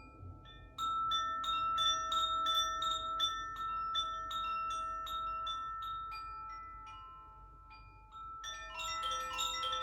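Makino-style healing chimes, tuned metal chimes, struck in an even run of about three notes a second, each note ringing on over a long sustained high tone. The run thins out and fades, then a denser run of strikes begins about eight seconds in.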